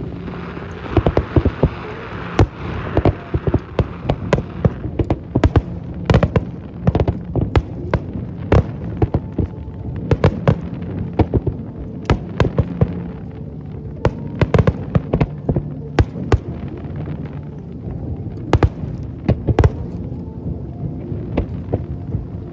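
Fireworks display: shells bursting in quick, irregular bangs, sometimes several close together, with a crackling hiss in the first few seconds.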